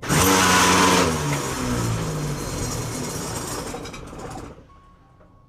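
Ryobi AP-10 benchtop planer briefly switched on and then coasting down. Its motor and cutterhead come up loud at once, and after about a second the pitch falls steadily as it spins down over a few seconds. The run is a test of whether the gears are loose.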